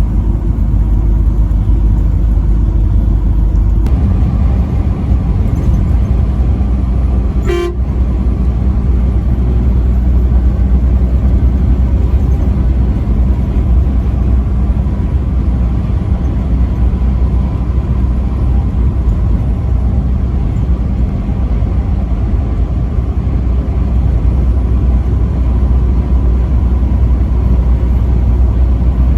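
Steady low rumble of a truck driving on the interstate, growing a little fuller at about four seconds in. One very short toot of the truck's horn sounds about seven and a half seconds in.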